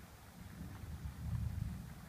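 Distant thunder from a passing storm front: a low rumble that swells about half a second in and fades near the end.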